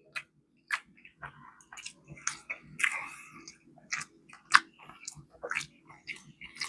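Close-miked chewing of a mouthful of cheeseburger: wet mouth smacks and clicks at irregular intervals.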